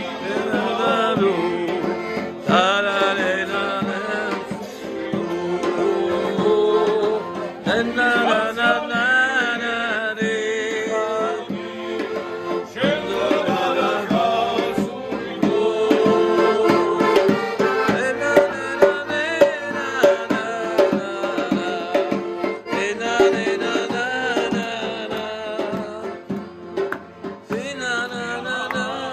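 Lively folk-style music with a melody line and a percussion beat.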